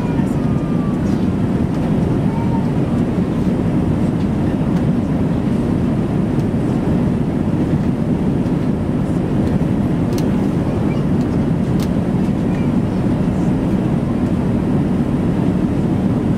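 Steady cabin noise of an Airbus A380-800 in cruise: an even, low rumble of airflow and engines, with a few faint clicks.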